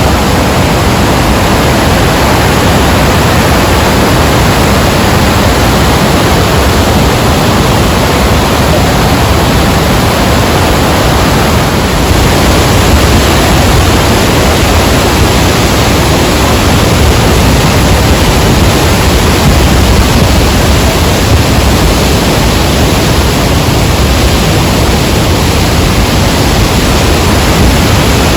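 Rhine Falls' waterfall heard close up: a loud, steady rush of falling water.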